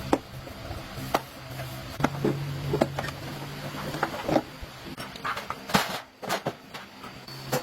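Workshop sounds: a string of irregular sharp knocks and clinks, like tools on metal parts. A low steady hum of a small motor stops just after the start and runs again for a couple of seconds in the middle.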